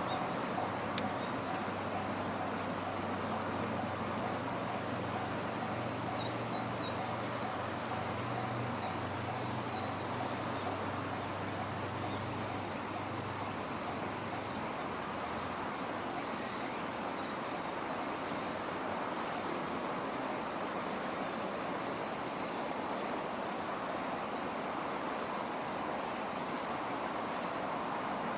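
Steady chorus of insects with a continuous high, thin trill, a short wavering chirp and then a run of evenly spaced chirps. A low hum, the train pulling away, fades out about halfway through.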